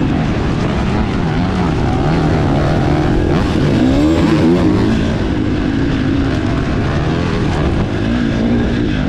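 Several motocross motorcycle engines running and revving together, their pitches rising and falling and crossing over one another.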